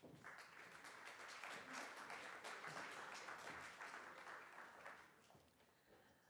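Audience applauding faintly, dying away about five seconds in.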